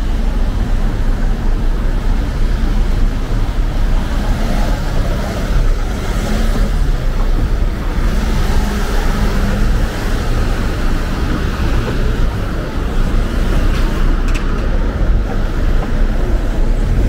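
Steady city street traffic: passing cars and other vehicles making a continuous road-noise rumble.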